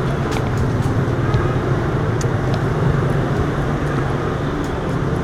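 Steady street traffic: the running engines of passing vehicles make a continuous low hum and rumble, with a few short clicks scattered through it.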